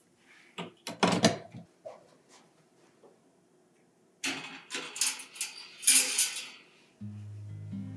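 A few sharp clicks and knocks of things being handled about a second in, then a couple of seconds of hissy rustling and scraping. Acoustic guitar music begins near the end.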